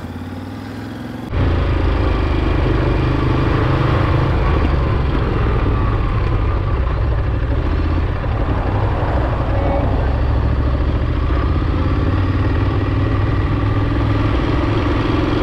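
Ducati DesertX's 937 cc V-twin engine running steadily as the motorcycle is ridden along, a low steady drone with a hiss of passing air over it. It comes in suddenly about a second in after a quieter start.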